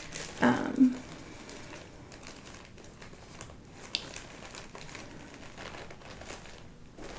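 Small plastic floss-away bags of embroidery floss rustling and crinkling as they are handled and sorted, louder briefly in the first second, with a single sharp click about four seconds in.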